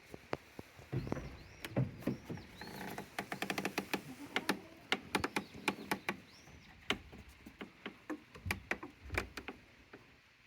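Goats moving about in their pen: a run of sharp clicks and knocks, densest in the middle, with a few low thuds. A few short, high, rising-and-falling bird chirps sound in the background, mostly in the first half.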